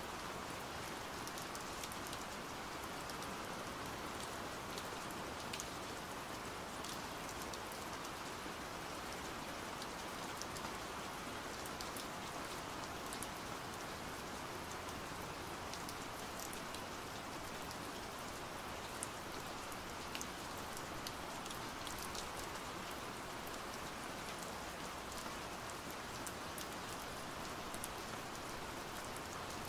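Steady rain falling, an even hiss with scattered sharper ticks of individual drops.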